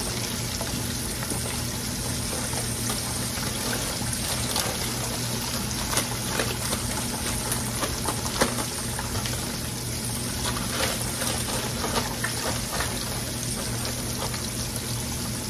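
Floured chicken wings frying in a pan of hot oil: a steady sizzling hiss with scattered pops and crackles.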